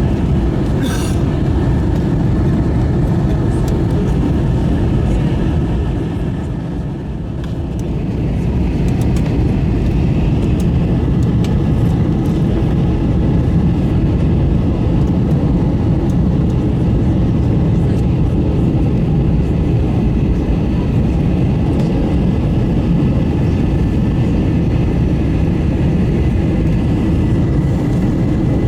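Airbus A321 cabin noise: a steady, loud low rumble of the engines and airflow, dipping briefly about seven seconds in and then coming back.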